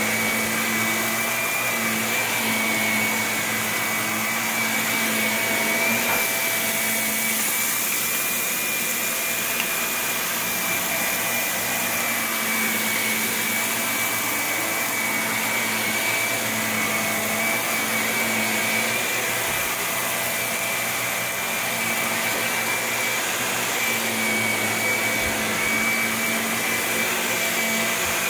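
Shark upright vacuum cleaner running on carpet: a steady motor whine with a constant high tone over the airflow, as the floor head is pushed back and forth.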